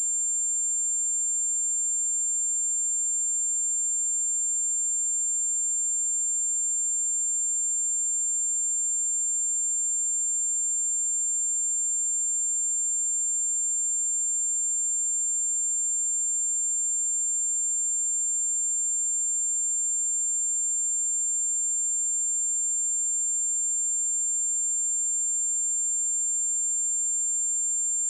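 A steady, unbroken 7314 Hz sine-wave test tone: one high, pure pitch held at a constant level.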